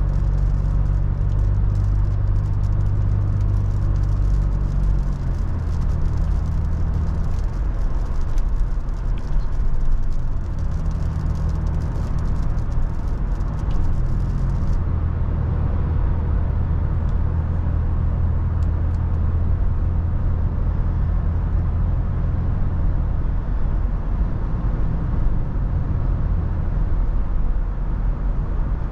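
Toyota FJ Cruiser's 4.0-litre V6 running under way, a steady low hum that steps in pitch a few times, over continuous wind and road noise.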